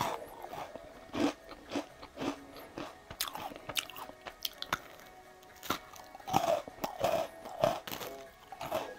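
A person biting into and chewing home-baked pastries near the microphone, in irregularly spaced bites, with quiet background music underneath.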